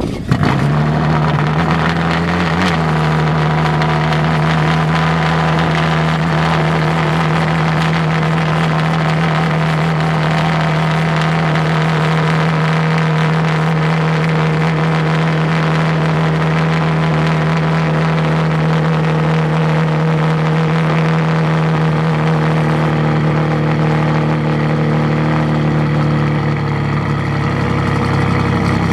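Ferrari Enzo's V12, breathing through a full titanium Boden Autohaus exhaust, fires up with a brief flare just after the start and then settles into a steady idle.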